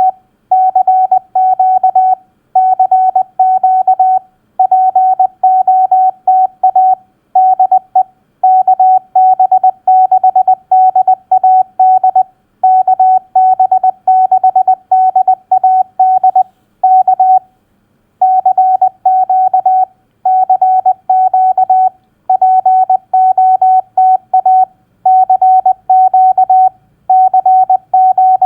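Morse code (CW) tone sent at 20 words per minute: a single steady pitch keyed on and off in dits and dahs, letters and words set apart by short pauses. It spells out a Parks on the Air activator's CQ call.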